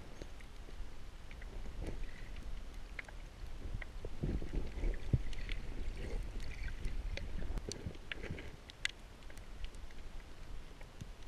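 Underwater sound through a camera housing: a steady low rumble of moving water, swelling about four to six seconds in, with scattered small clicks and knocks.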